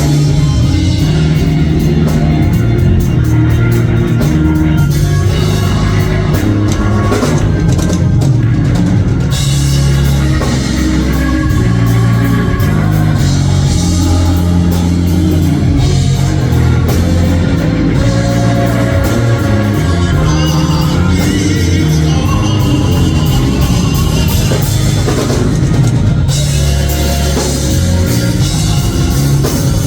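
Live church band with drum kit, bass and guitar playing a worship song, with voices singing along.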